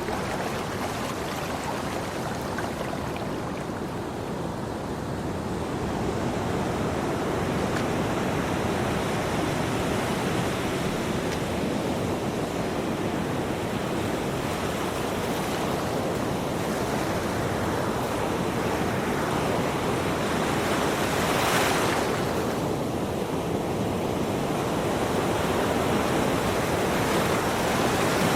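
Ocean waves breaking and washing on a shore in a continuous rushing surge that slowly swells and ebbs, with a louder, hissier crash about three-quarters of the way through and another near the end.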